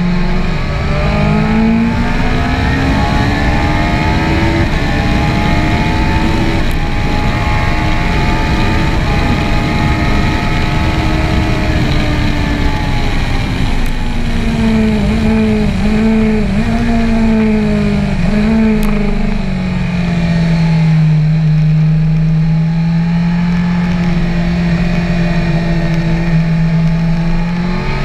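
BMW S1000R's inline-four engine heard on board at track speed: the note climbs over the first few seconds, holds high, then falls with several quick breaks as the bike slows, runs steady at lower revs, and rises again near the end. Heavy wind rush over the microphone through the fast stretch.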